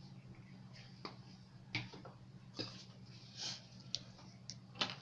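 Irregular light clicks and taps of drafting tools being handled on a tabletop, about seven in a few seconds, over a low steady hum.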